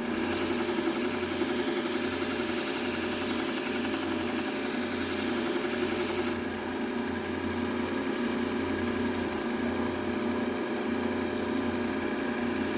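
Bucktool low-speed belt sander running with a Trizact A30 belt, its motor humming steadily. A knife blade is ground against the belt with a high hiss for about the first six seconds, and again near the end, while sharpening the edge.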